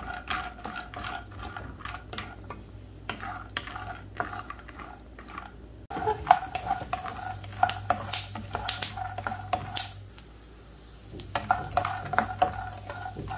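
Raw peanuts being stirred with a wooden spatula in a nonstick kadai while they dry-roast in a little oil, the nuts rattling and clicking against the pan with the spatula scraping through them. The stirring pauses briefly about ten seconds in, then resumes.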